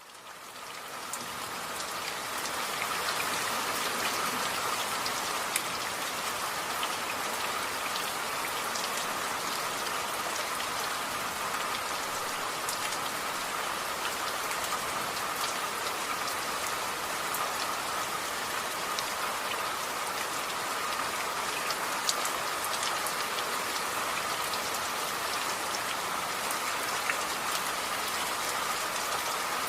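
Steady rain falling, an even hiss of rain with scattered sharp ticks of single drops striking a surface. It fades in over the first couple of seconds and then holds steady.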